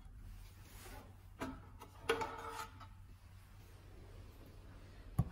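Faint handling sounds of a sheet-metal printer carriage cover being worked loose with a screwdriver: scattered clicks and short scrapes, with a sharp click near the end, over a low steady hum.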